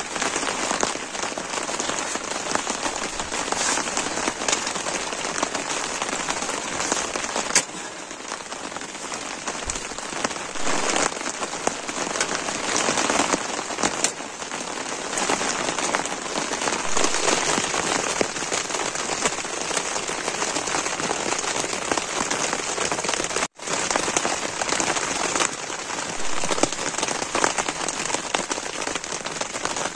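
Heavy rain falling on a tent's fabric fly, heard from inside the tent as a dense, steady patter, with a couple of sharp clicks early on in the first half.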